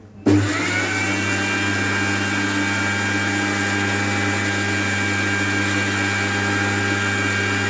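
Panasonic electric mixer grinder starting up about a third of a second in, its motor whine rising in pitch as it spins up, then running steadily as it grinds a jar of dry-roasted coriander seeds and whole spices into powder.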